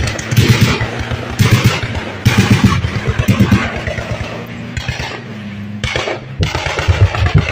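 Steady engine drone of armoured vehicles under repeated bursts of automatic gunfire, the cracks coming in clusters a few times.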